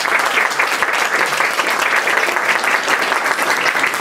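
Audience applauding: many people clapping steadily together.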